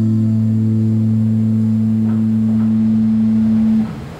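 Worship song ending on a held low note, sustained steadily with no singing, then fading quickly near the end and cutting off.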